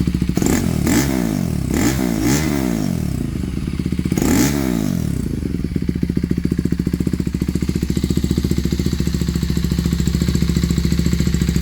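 2024 KTM Duke 390's single-cylinder engine through a Barrel Rogue 2.0 slip-on exhaust with the decibel killer removed. It idles, is blipped up and down about four times in the first five seconds, then settles back to a steady idle.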